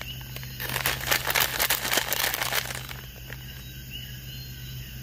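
Plastic M&M's candy bag crinkling as a hand rummages in it for a candy, starting about half a second in and stopping about three seconds in.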